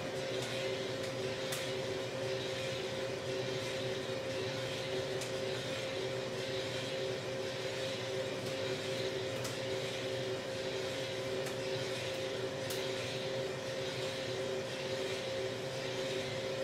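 Drum coffee roaster running: a steady hum from its drum motor and fan, with two even tones over a rushing noise. A few scattered sharp clicks sound through it.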